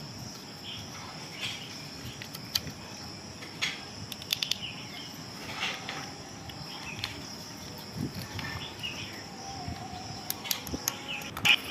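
Scattered sharp clicks of a screwdriver working screws on a Honda Activa 125 scooter's carburetor, with a cluster near the end, over a steady high-pitched chirring of insects.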